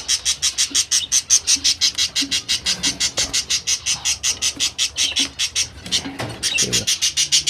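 Small cage bird calling in a fast, even string of short high chirps, about eight a second, with a brief gap near the end. It is an alarmed bird, scared by the keeper's hand at its cage.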